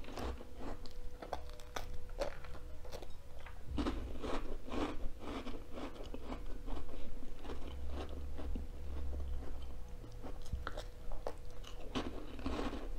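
Crunching and chewing of a crisp Ülker Taç salted cracker bitten off and eaten, a run of short crackly crunches throughout.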